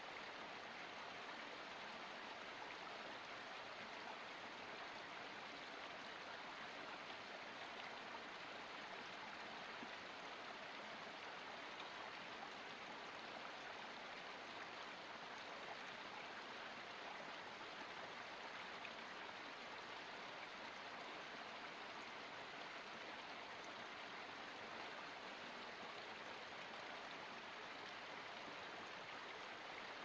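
Small forest stream splashing down a little cascade over rocks: a faint, steady, even rush of running water.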